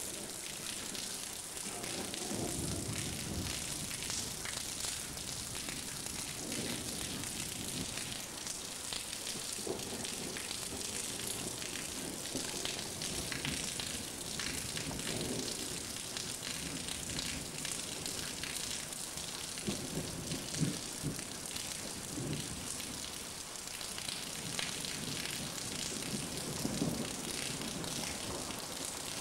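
Heavy rain falling steadily in a thunderstorm, with several low rumbles of thunder swelling and fading.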